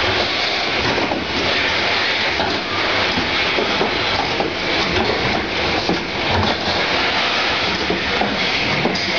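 Steady, dense noise of packing machinery running, with faint irregular clicks and clatter throughout.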